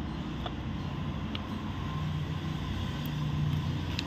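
Steady low rumble of a running vehicle engine in the background, swelling slightly about three seconds in, with a few light metallic clicks from timing-chain parts being handled.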